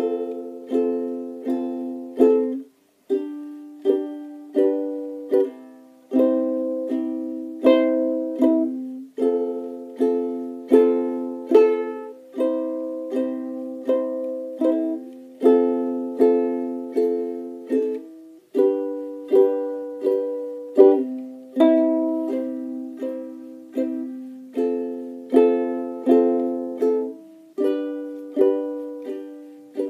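Background music: chords on a plucked string instrument, each struck sharply and fading, in a steady rhythm of one or two a second.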